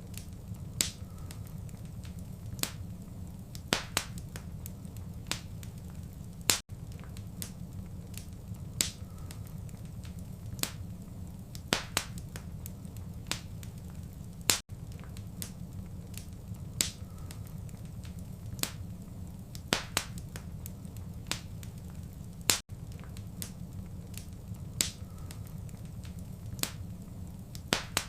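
Fireplace fire crackling, with irregular sharp pops over a steady low rumble. A brief dropout comes about every eight seconds.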